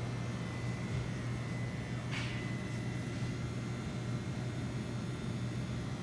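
Steady low hum and hiss of the grocery store's background machinery, with a brief high squeak about two seconds in.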